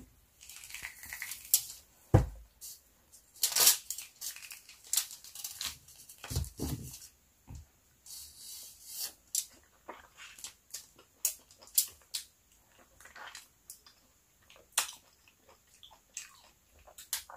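Hands tearing a large orange apart, ripping the thick peel and pith in a run of short, sharp crackles and rips. Two heavier thumps stand out, about two seconds in and again near six and a half seconds.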